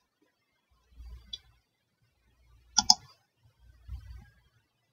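Two sharp computer mouse clicks in quick succession, a little over halfway through, with a few faint low bumps around them.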